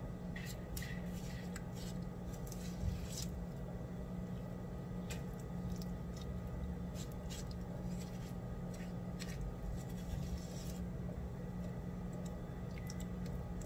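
A spoon spreading raw green chilli sambal over grilled chicken on a plate: scattered soft clicks and scrapes of the spoon against the food and plate, over a steady low hum.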